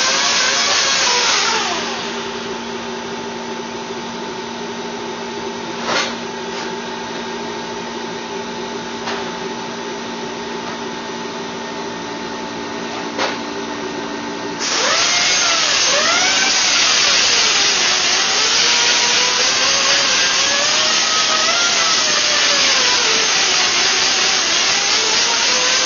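A handheld power tool running at full speed, its pitch dipping and rising as it is loaded. About two seconds in it drops to a quieter steady hum, with two sharp clicks. Near the middle it comes back to full loud running.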